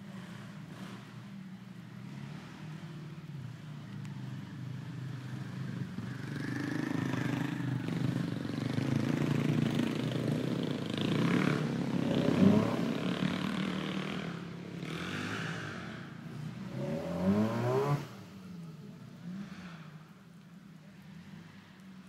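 Small 4x4's engine working under load while crawling up a rocky ledge, growing louder over several seconds. It revs up sharply just before dropping back suddenly about eighteen seconds in.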